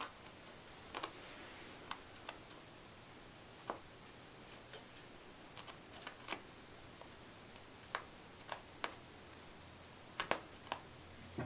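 Light, irregular taps and clicks of a cat playing with an elastic band, scattered singly with a quick cluster near the end.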